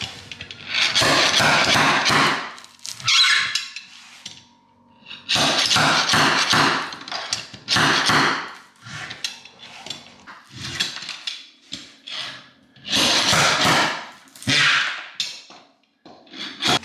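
Slide-hammer nail puller being worked on an OSB subfloor, pulling nails: repeated bursts of knocking and scraping metal on wood, several lasting about a second, with short pauses between strokes.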